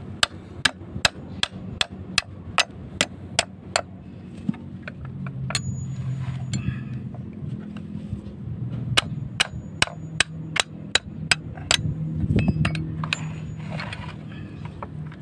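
Hammer blows on steel in two quick runs of about two to three strikes a second, each with a short metallic ring. They come from working loose a tight nut on a cooling-fan hub held by an open-end wrench.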